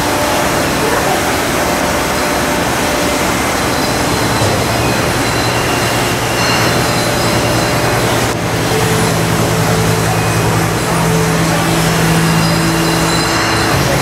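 Loud, steady machinery noise of a brewery packaging hall, with conveyors and packaging machines running: a constant rush with a few steady hums and whines on top that shift about eight seconds in.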